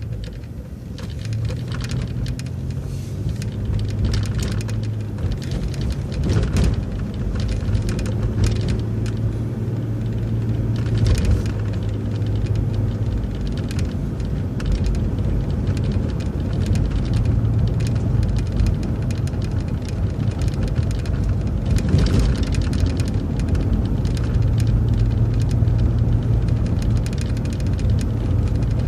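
MCO ViewMaster bus driving, heard from inside the cabin. A low engine drone fades in and out as the bus pulls away and moves along, with a few sharp knocks or rattles along the way.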